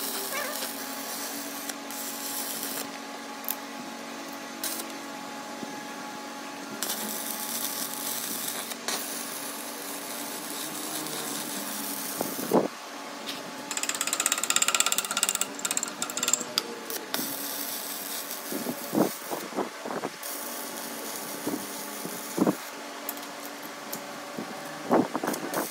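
Arc welder with a gun-type torch crackling and hissing in several runs, building up weld on a worn steel shaft to rebuild it, over a steady electrical hum. Sharp clicks and knocks come in between the runs, more of them in the last several seconds.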